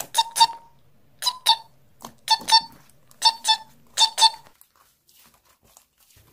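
Cartoon mouse squeak sound effect: quick high double squeaks, repeated about once a second five times, stopping about four and a half seconds in.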